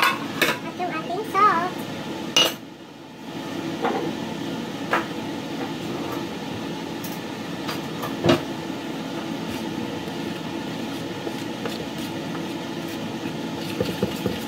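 Scattered clinks and knocks of kitchen utensils and a stainless steel mixing bowl set down on a counter, over a steady hum. Near the end a spoon starts stirring flour in the steel bowl, with quick rapid clicks.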